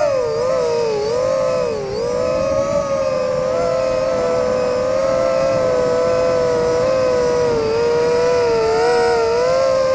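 Aerial Havoc 340 FPV quadcopter in flight, heard from on board: its brushless motors spinning bullnose DAL 5045 propellers give a steady whine. The pitch dips and swoops a few times in the first two seconds, then holds nearly level.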